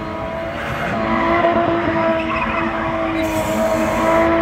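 BMW M20 straight-six engine held at steady high revs during a spin, with tyres screeching against the pavement.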